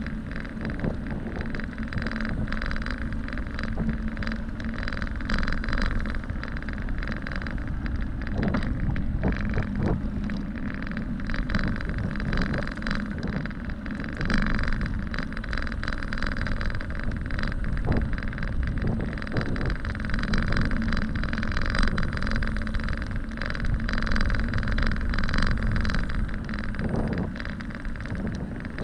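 Bicycle riding along an asphalt trail: steady tyre and wind noise with a low rumble on the microphone, and scattered clicks and rattles over bumps in the pavement.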